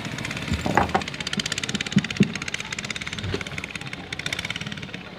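A small engine running steadily with a rapid, even beat, with a few dull knocks about a second in and twice around two seconds in.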